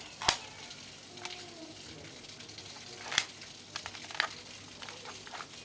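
Three sharp clicks of the Black Mamba P377 spring airsoft pistol's plastic and metal parts being handled: the loudest just after the start, then two more about three and four seconds in, over a steady crackly hiss.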